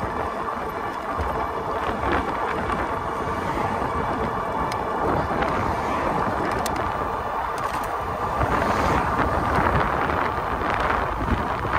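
Steady wind rush on the microphone and road noise from a folding e-bike riding along an asphalt road, growing a little louder over the last few seconds.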